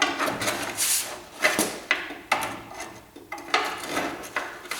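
A series of metal scrapes and knocks as a wedged front coil spring is worked loose from the suspension.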